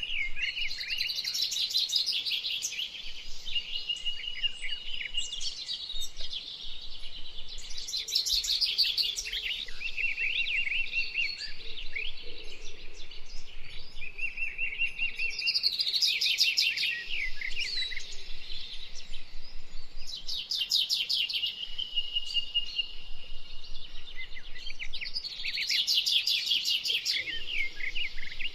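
Songbirds singing: bursts of rapid, high chirping notes come back every four to five seconds, with shorter steady trills between them.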